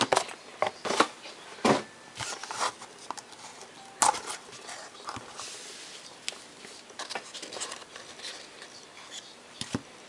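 Trading cards and their packaging being handled: rustling and crinkling with scattered small clicks, and one sharper click about four seconds in.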